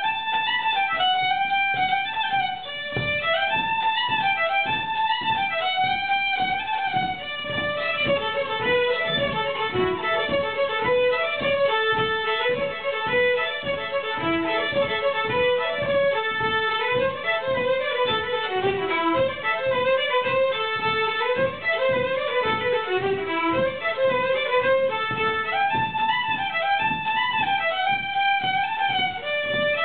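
Two fiddles playing Shetland folk tunes together in a lively, rhythmic duet. The melody drops to a lower register for a long stretch in the middle, then climbs back up near the end.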